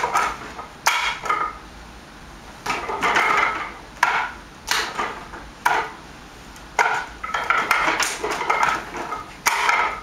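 Hands and forearms striking the wooden arms and trunk of a Wing Chun wooden dummy: sharp wooden knocks and clacks, some single and some in quick runs of several, at an uneven pace.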